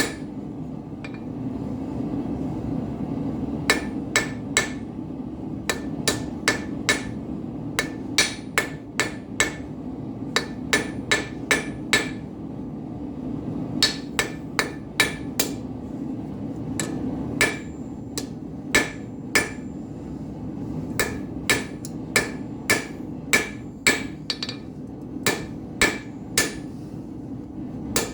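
Blacksmith's hammer striking hot steel on an anvil in runs of quick ringing blows with short pauses between them. The gas forge's burner hums steadily underneath.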